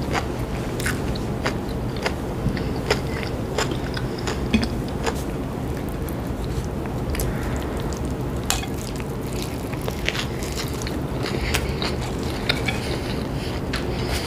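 Close-miked eating of a sub sandwich: biting into the soft roll and chewing, with many short wet mouth clicks throughout and a bite about eight seconds in.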